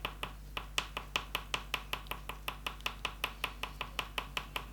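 Oil pastel stick tapped rapidly and evenly on paper, about six taps a second, dabbing on olive green dots.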